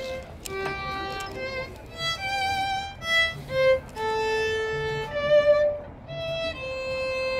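Solo violin playing a slow melody of single held notes, some with a light vibrato.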